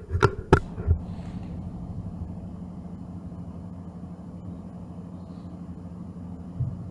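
Three sharp knocks or clicks in the first second, then a steady low hum of room noise; a softer knock comes near the end.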